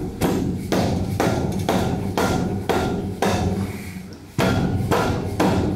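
Repeated hammer blows on the cast-iron cylinder head of a Triumph Spitfire's 1147 cc four-cylinder engine, about two sharp strikes a second with a short break after about four seconds. The blows are tapping the stuck head to break it free of its head gasket and the block.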